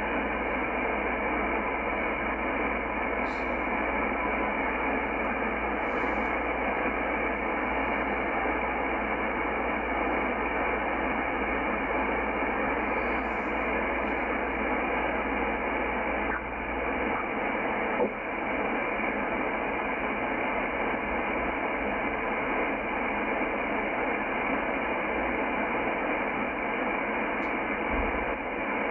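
Shortwave band static from a Yaesu FTdx10 receiver in upper sideband as its dial is turned through the 17.1–17.3 MHz utility band: a steady, muffled hiss with no station coming through. A few faint clicks sound over it.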